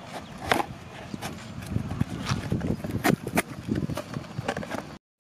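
Cardboard firework box handled and opened by hand: a run of sharp taps and clicks from the cardboard with soft rustling and scraping between them. The sound cuts off suddenly just before the end.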